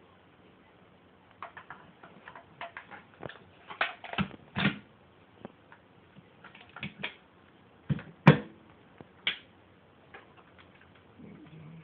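Parts of an M17 Bushmaster being handled and fitted back together: irregular clicks and knocks, the loudest about eight seconds in.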